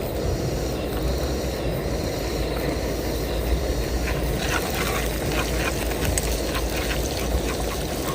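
Bird's-eye chilies frying in a little leftover oil in a pan: a steady sizzle, with short crackles and clicks coming often from about halfway.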